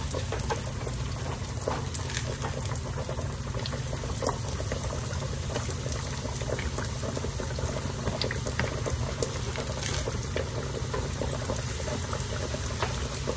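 Catfish fillets deep-frying in a wide pan of hot avocado oil: a steady sizzle and bubbling with scattered small pops.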